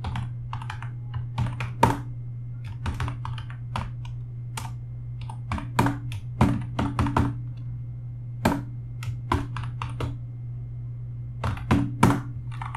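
Typing on a computer keyboard: irregular runs of keystrokes with short pauses between words, over a steady low hum.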